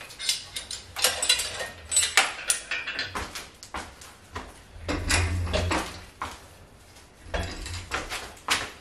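Scattered metallic clanks, clinks and rattles from an engine hoist's chain and load leveler and a diesel engine block being shifted onto an engine stand, with several sharp knocks spread through.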